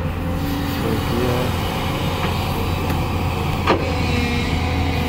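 Heavy diesel engine running steadily with a low hum, and a single sharp knock about three and a half seconds in.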